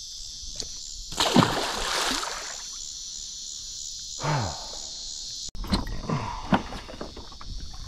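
A small shark tossed back into the water lands with a splash about a second in, over a steady high drone of insects. After a cut near the middle, water drips and sloshes as a crab drop net is hauled up by its rope.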